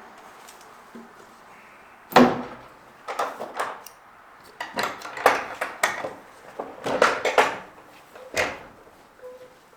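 Irregular knocks and clattering of wood and metal in a horse barn during stall mucking, the loudest knock about two seconds in and the rest coming in short clusters.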